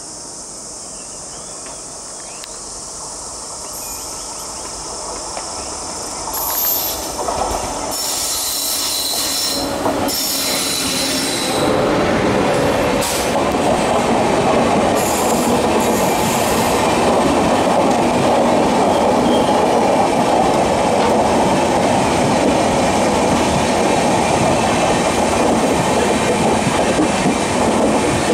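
Express train hauled by a WAP-7 electric locomotive approaching and rolling past while braking hard to a halt. It grows steadily louder, with high wheel and brake squeals between about six and twelve seconds in, then a steady rumble and clatter of coaches passing close by. Crickets chirp faintly at the start before the train drowns them out.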